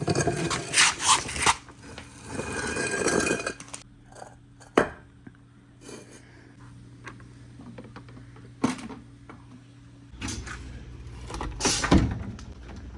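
Marbles rolling and clattering along a handmade wooden marble run, with bursts of rattling rolls and single sharp clacks as they hit wooden pieces.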